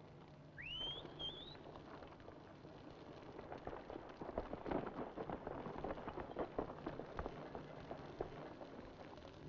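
A short rising whistle just under a second in, then several seconds of quick, irregular crunching and thudding: the footsteps of several men running over dry grass and stones.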